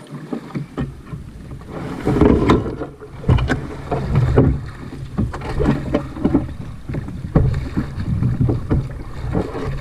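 Canoe being paddled and pushed through shallow, rocky water: irregular knocks and scrapes of the hull and paddle against rocks and logs.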